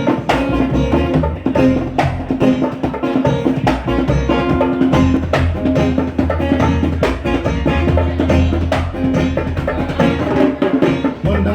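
Live reggae band playing an instrumental intro, with a drum kit keeping a steady beat over a bass line.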